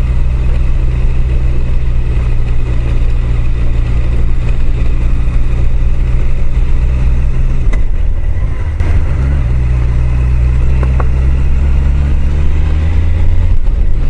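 Honda CBR1000F inline-four motorcycle engine running steadily, heard from the rider's helmet while riding on a gravel road, with road and wind noise. About eight seconds in the engine note dips and changes, then steadies again.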